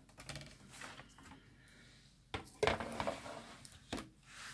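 Clear plastic cutting plates of a die-cutting machine being handled and lifted apart, with a few knocks and a short clatter of hard plastic a little after halfway and another knock near the end.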